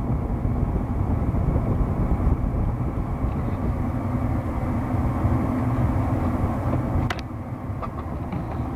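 Steady low rumble of a Ford F-150's 5.4 V8 and road noise, heard inside the cab while driving. A single sharp click comes about seven seconds in, after which the rumble is a little quieter.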